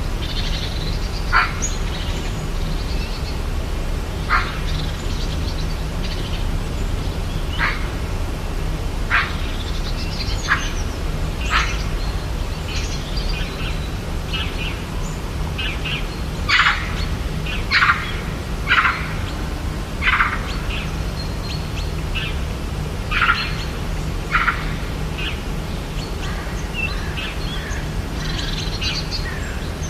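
Rainforest birds giving short, sharp calls one after another, every second or two and more often about halfway through, over a steady low background rumble.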